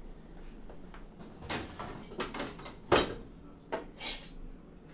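Kitchen drawer being opened and rummaged through, metal utensils clattering against each other, with one loud sharp clack about three seconds in.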